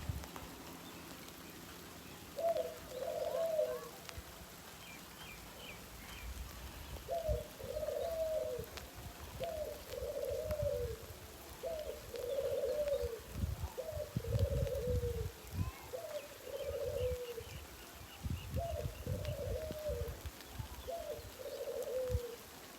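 Pigeons cooing in a repeated series of low calls of about a second each, with faint higher bird chirps and low rumbling underneath.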